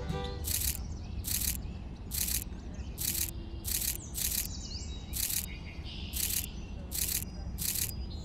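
Birds chirping, with a regular hissing pulse about one every 0.7 seconds running under them; the pulse is the loudest sound.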